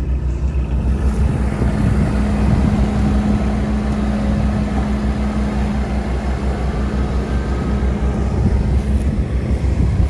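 Farm tractor's diesel engine running steadily with a constant low drone and a steady hum.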